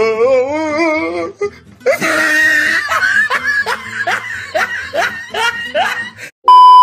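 Laughter over music, a run of short rising cries about three a second. Near the end a loud steady beep tone cuts in.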